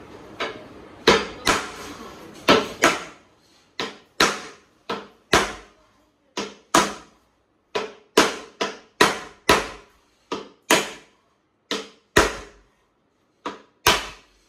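Hammer knocking on flat-pack cabinet panels: some two dozen sharp, irregular blows, at times about two a second, each ringing briefly. This is the sound of carpenters tapping the panels of a factory-made kitchen cabinet into place as they assemble it.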